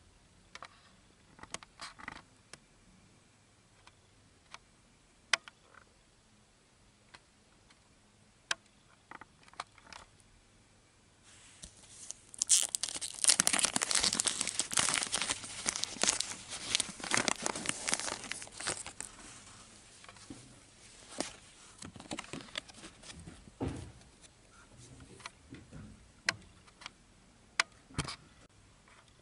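Foil booster-pack wrapper crinkling as it is handled: scattered small clicks and rustles, then several seconds of loud, continuous crinkling near the middle, then intermittent crinkles again.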